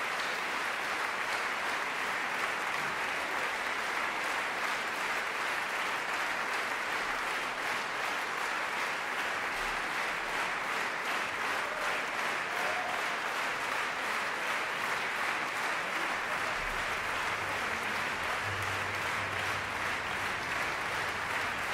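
Concert audience applauding, a steady, even clapping throughout.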